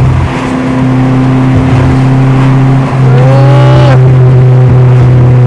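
Steady, loud engine drone inside a moving car's cabin while cruising. About three seconds in there is a brief whine that rises and then falls.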